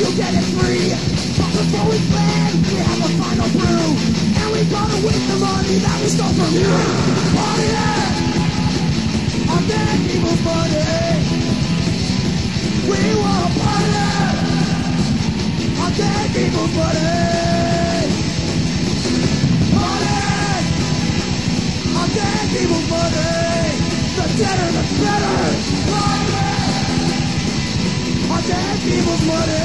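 Loud punk rock band playing, with yelled vocals over the band.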